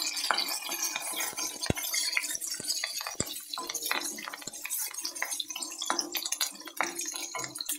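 Whole spices, garlic and curry leaves frying in hot oil in an iron kadai, sizzling and crackling, while a wooden spatula stirs and scrapes them around the pan with a few sharp knocks against the metal.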